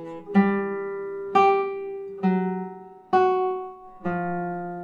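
Nylon-string classical guitar playing a slow left-hand chromatic exercise: five single notes, about one a second, each with a sharp attack and left to ring into the next.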